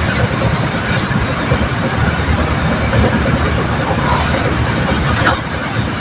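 A steady, loud low rumbling noise throughout, with a sharp knock about five seconds in.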